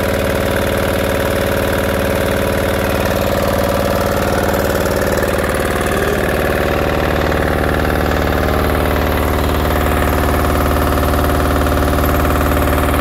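Kohler diesel engine on a Kerrick pressure washer running steadily at an even speed.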